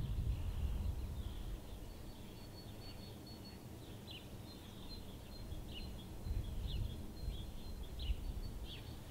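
Outdoor rural ambience with birdsong: a bird repeats a short falling chirp every second or so from about four seconds in, over a faint high steady trill. Under the birds is a low rumble, strongest at the start.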